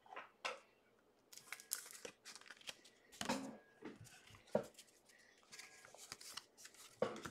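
Faint, irregular rustling and crinkling of trading cards and their packaging being handled, with a few sharper crackles.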